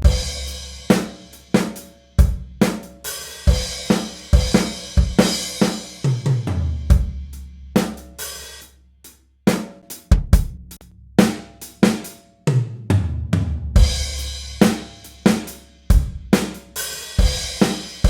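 Drum kit pattern of kick, snare, hi-hat and cymbals, played through a studio room reverb, with long low bass notes under the kicks. It breaks off briefly about nine seconds in, then the pattern starts again.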